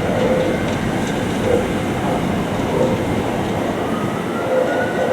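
Electric train running along a station platform, a steady rumble with a whine rising in pitch over the last second or two.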